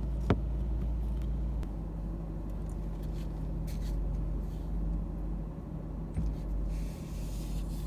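Car engine idling steadily, a low even hum heard from inside the cabin, its tone shifting slightly about two seconds in. A sharp click just after the start and a light knock near the end, like a phone being set into a dashboard holder.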